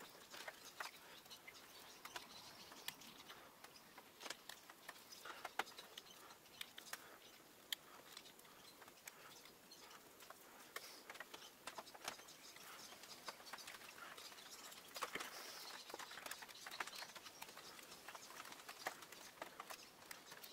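Faint, irregular small clicks and scratches of a utility knife blade cutting and scraping detail into a wooden lure body.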